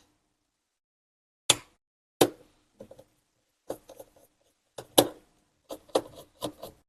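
Short, sharp clicks and small taps of tools and metal parts being handled while a replacement head stack is fitted into an open hard drive. There are about ten of them, spaced irregularly, and they come closer together in the second half.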